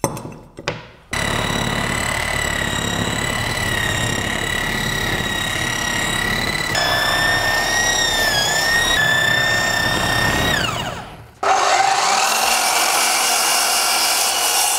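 Hand-held brushing machine with a copper wire brush running in a steady high whine as it strips paint off wooden boards, its pitch dipping briefly under load. About eleven seconds in, a mitre saw starts with a lower, steady motor tone and begins to spin down near the end.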